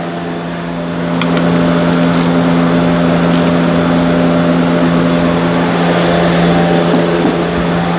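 A steady, loud machine hum like an idling motor, holding a low drone with a few overtones. A few faint, separate clicks from a ratchet wrench tightening a steel oil drain plug on the oil pan.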